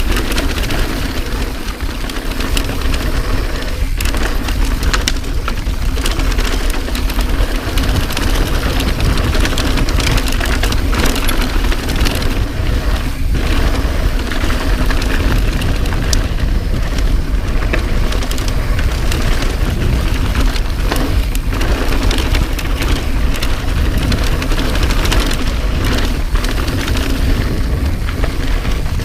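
Mountain bike descending a dirt trail at speed: steady wind rush and low rumble on the camera mic, with tyre roar and frequent knocks and rattles from the bike over rough ground.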